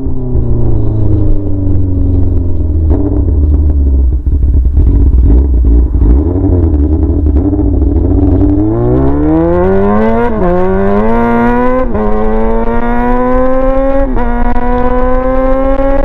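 Yamaha R6's inline-four engine running with no muffler, straight-piped, under way on the road. It runs at low revs for about the first half. Then it accelerates hard, the pitch climbing and dropping back sharply at each of three quick upshifts.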